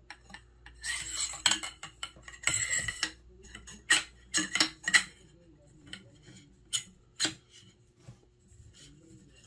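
Metal parts of a SAM Marauder air rifle being handled: clinking and scraping in the first few seconds, then a run of sharp metallic clicks, growing sparse near the end.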